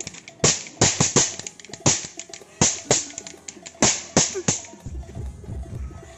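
Plastic toy cap gun firing a string of about ten sharp, irregularly spaced cracks as its caps go off. Background music with a low drum beat comes in near the end.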